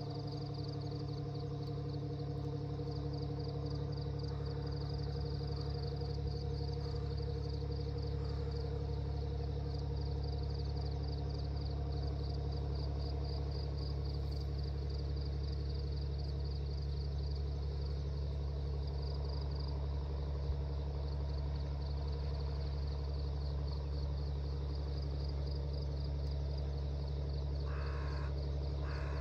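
Outdoor evening ambience: a steady low hum with a fast, continuous chirping trill high above it, like an insect, and two short calls near the end.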